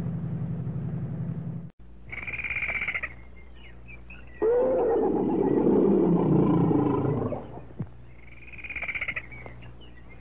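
A tiger roars once: a loud roar about three seconds long, starting about four seconds in and falling in pitch. Shorter high-pitched calls come about two seconds in and near the end, over a steady low hum.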